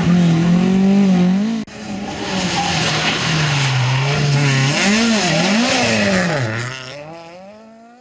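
Rally car engines at high revs passing on a special stage, with gravel and tyre noise. About a second and a half in, the sound cuts to a second car whose engine revs rise and fall sharply several times through gear changes and lifts of the throttle, then fades as it goes away.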